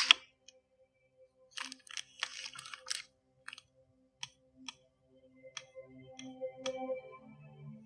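A quick run of clicks and taps, then scattered single clicks, over faint steady low humming tones.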